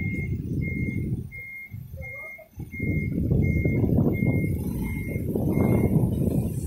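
Vehicle's reverse alarm beeping at an even pace, about three beeps every two seconds, over a loud running engine; the beeping stops near the end as the vehicle finishes backing up.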